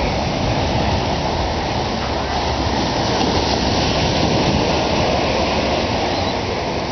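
Ocean surf breaking and washing up the beach as the tide comes in, a steady noise with no pauses.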